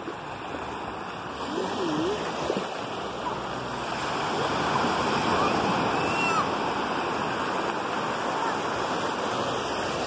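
Small sea waves breaking and washing up the beach, a steady rush of surf that swells louder over the first few seconds. Faint voices come through now and then.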